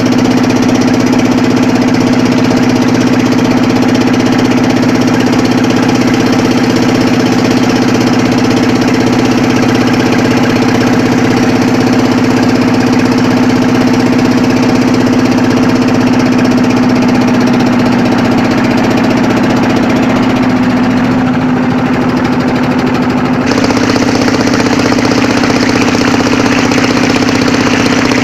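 Motor of a narrow wooden river boat running steadily under way, a constant low engine hum. It eases a little about twenty seconds in and steps back up suddenly a few seconds later.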